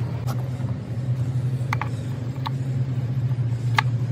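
Steady low hum of a running engine, with a few sharp metal clicks as the steel engine plate and housing are handled.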